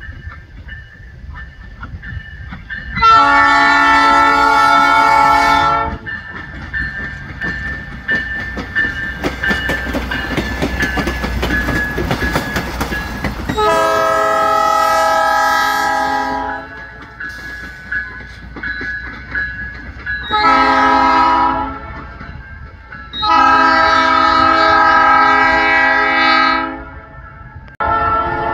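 Budd Rail Diesel Car's air horn sounding the grade-crossing signal: two long blasts, a short one and a long one. Between the first two blasts the railcar passes close by, its engine and wheels rumbling and clattering over the rails. Another horn blast starts near the end.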